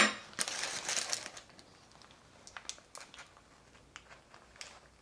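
Parchment paper crinkling as a cooked packet is lifted and tipped over a plate, opening with a sharp click; the rustling is strongest for the first second or so, then thins to scattered faint crackles.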